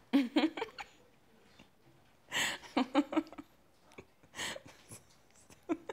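A woman giggling in three short bouts, breathy bursts of air broken by quick little pitched laughs, at something on her phone.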